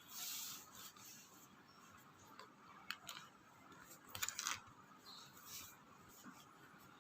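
Very quiet room with a few faint, short clicks and light rustling: a soft rustle at the start, a single click about three seconds in, and a quick cluster of clicks a little after four seconds.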